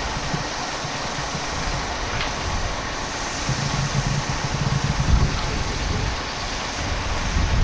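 A heavy vehicle's engine running low, under a steady haze of outdoor noise.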